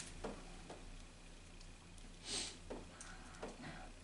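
Quiet room tone with a low steady hum, a few faint clicks, and one brief soft hiss a little past the middle.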